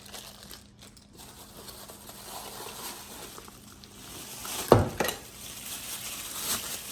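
Rustling and handling of plastic packaging and parts from a cordless drill kit, with one sharp knock a little under five seconds in, as of a hard item set down or bumped.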